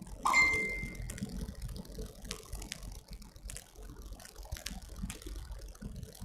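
Faint scattered clicks over a low rumble, with a short high ringing tone about a third of a second in.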